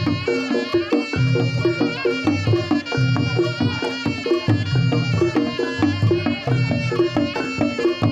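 Reog Ponorogo gamelan ensemble playing: a sustained, wavering slompret melody over dense kendang drumming and regular struck gong-chime notes, with deep gong tones recurring about once a second.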